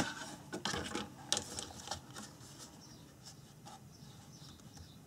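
Handling of paper card stock and a thin metal framelet die as they are laid on a Big Shot die-cutting platform: a few light clicks and paper rustles in the first two seconds, then only faint handling.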